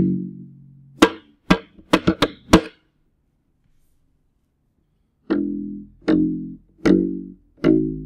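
Clifton zebrawood acoustic ukulele bass being played: a low note dies away, then a quick run of about five short, muted percussive hits on the strings, a pause of about two and a half seconds, then four evenly spaced plucked bass notes, each ringing briefly before the next.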